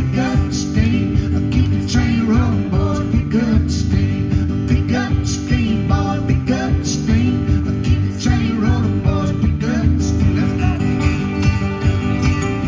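A live acoustic band playing a song: two strummed acoustic guitars over a bass guitar line, with sung vocals from a woman and a man.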